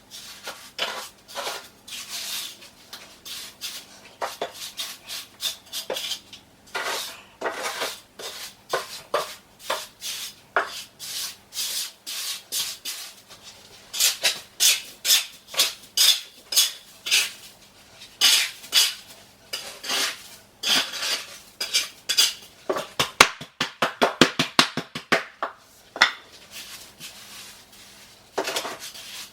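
A 2x4 scraping and tamping dry-pack mortar to level and compact a shower pan, in short repeated strokes about one or two a second, with a quick run of rapid taps about three-quarters of the way through.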